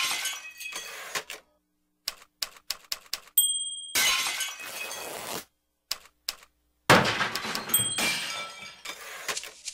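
Sound effects of breaking and shattering: short sharp clicks, a bell ding about three and a half seconds in, then a long crash of things breaking. More clicks follow, then a second long crash about seven seconds in with another ding inside it.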